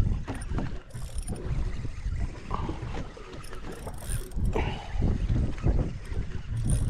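Wind buffeting the microphone in an uneven low rumble, with open water washing against a boat's hull and a few brief knocks.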